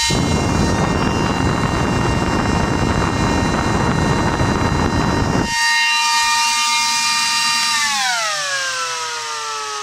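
Delta GFM0812SS 12 V 6.5 A high-speed fan running with a high-pitched whine. For the first five seconds or so a loud rushing noise of its airflow hitting the microphone covers the whine. About eight seconds in the whine falls steadily in pitch as the fan winds down.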